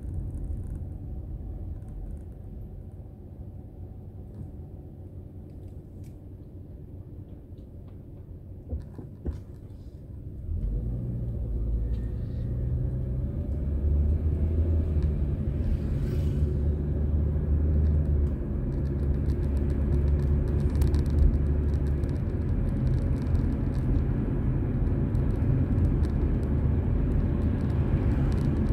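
Car engine and road noise heard from inside the car: a low, quieter rumble at first, then about ten seconds in it grows clearly louder as the car gathers speed, and stays at that level. A couple of short clicks come just before the rise.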